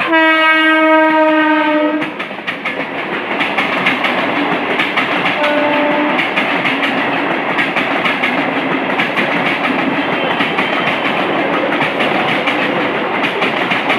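Indian Railways train sounding its horn for about two seconds, the pitch dropping slightly, then passing close by with wheels clattering over the rail joints. A second short horn note comes about halfway through.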